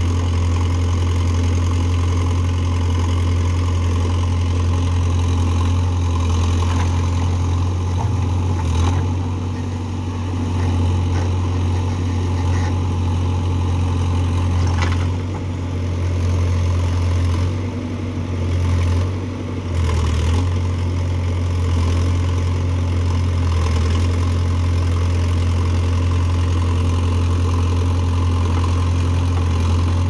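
JCB 3DX backhoe loader's diesel engine running steadily while the backhoe arm digs and lifts soil, the engine note dipping briefly a few times as the load changes. A couple of short knocks are heard along the way.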